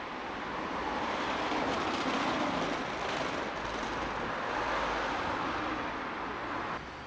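City street traffic noise that swells as a vehicle passes close by, then drops off abruptly near the end.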